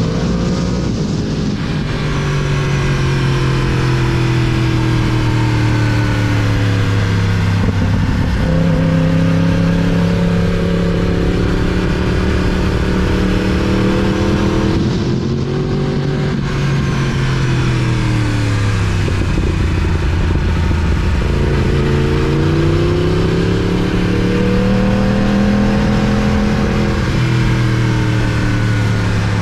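2019 Yamaha R1's 998 cc crossplane inline-four running under way, its engine note climbing with the throttle, dropping sharply a few times and climbing again, and sinking for several seconds before rising once more, over a constant rush of wind noise.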